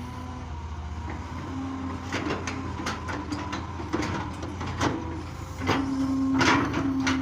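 Excavator's diesel engine running steadily with a whining hydraulic tone that swells under load, and a string of sharp knocks and clanks from about two seconds in, loudest near the end.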